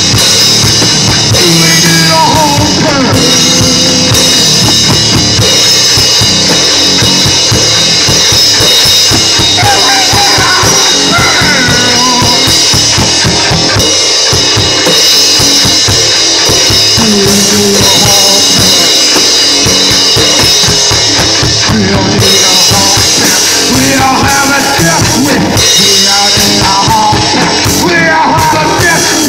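A rock band playing loud at close range: a drum kit pounding along with a guitar.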